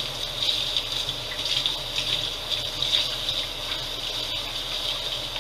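Kitchen tap running steadily into the sink, with water splashing as dishes are rinsed under it.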